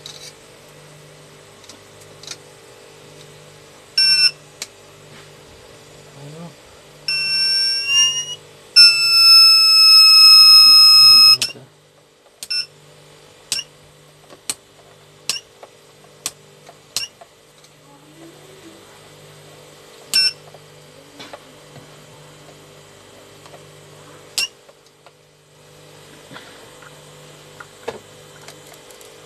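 TBE 1200 W pure sine wave inverter's alarm buzzer sounding: a short beep about four seconds in, a wavering tone, then a loud steady buzzer tone for about three seconds, followed by short chirps roughly once a second. This is the buzzer fault that comes with the inverter losing its output. Underneath, a low hum pulses on and off a bit more than once a second.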